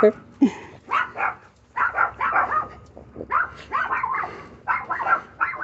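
Small dogs barking and yipping in a string of short, quick calls, several in a second, in runs that go on throughout.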